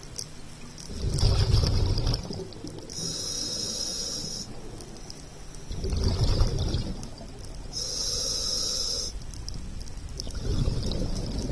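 Scuba diver breathing through a regulator underwater: a hiss on each inhale alternating with a low bubbling rush of exhaled air, about every five seconds, with three exhales.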